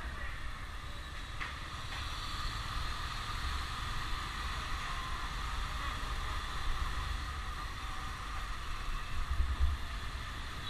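Motorbike riding along a street, heard from the rider's seat: a steady rush of wind on the microphone over a low engine and road rumble.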